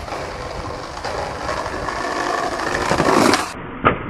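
Skateboard wheels rolling over concrete, growing louder as the board approaches, then a single sharp clack of the tail popping an ollie near the end.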